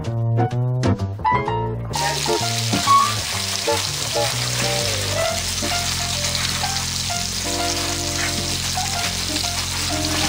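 Music, joined about two seconds in by the steady sizzle of a chuck roast frying in oil in an enameled cast-iron Dutch oven.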